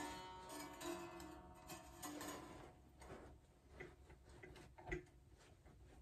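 Epiphone Casino hollow-body guitar string being tuned at the headstock. A plucked note rings and fades at the start, short plucked notes follow at shifting pitch, and light clicks and taps come from the tuner and string, the clearest about five seconds in.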